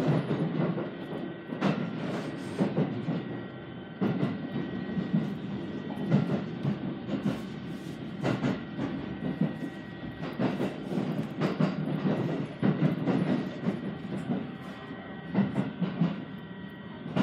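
Aichi Loop Railway 2000 series electric train heard from inside the passenger car: steady running noise, wheels clacking over rail joints every second or two, and a faint steady whine above.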